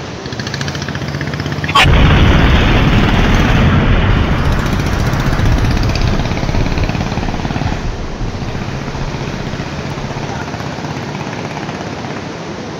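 Waterfall in heavy flood: a dense, steady rushing noise with a deep rumble. It grows sharply louder about two seconds in, then eases off slowly.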